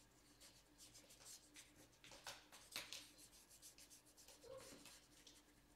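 Near silence: faint, irregular scratchy strokes of a fine paintbrush on paper over a low, steady room hum.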